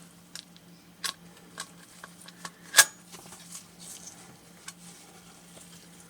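Small clicks and taps of plastic and metal parts being handled as the LCD and its layers are fitted into a radio's display housing, with one sharper click about three seconds in.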